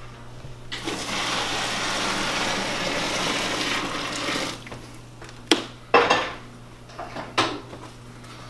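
Boiling water poured from a stainless steel pot into a plastic cooler over ears of corn, splashing and gushing for about four seconds. A few sharp knocks follow.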